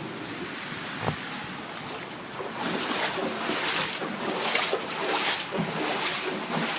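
Floodwater sloshing and splashing, with wind buffeting the microphone. A sharp click comes about a second in, and the splashing grows louder and more uneven after about two and a half seconds.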